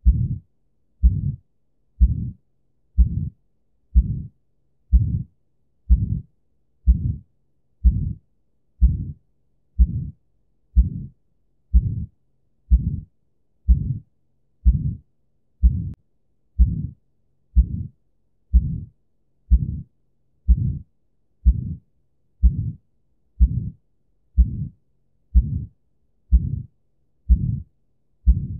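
Heart sounds recorded through a stethoscope: a steady, regular heartbeat of about 60 beats a minute, each beat a low, dull thump, with a faint hum between beats.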